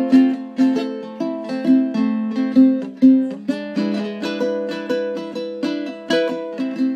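Custom koa-wood ukulele built by Fred Shields, played solo as a run of plucked notes and chords, a few a second, each ringing on and fading before the next.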